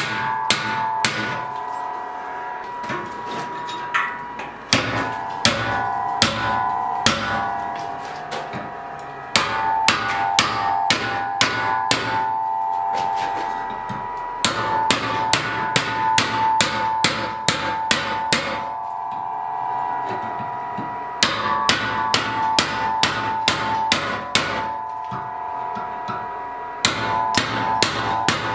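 Hand hammer striking a chisel held against the steel canister of a forged scrap-metal billet in a vise, cutting the canister away. Sharp metallic blows, about two to three a second, come in runs broken by short pauses, and the metal keeps ringing between blows.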